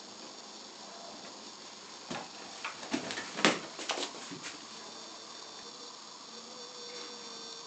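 A quick run of soft knocks and rustles about two to four seconds in, over steady background hiss.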